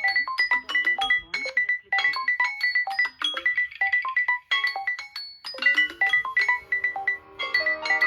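A smartphone's melodic ringtone playing: short bright notes over a high note repeated about four times a second, with a few brief breaks. Near the end a different tone with held notes comes in.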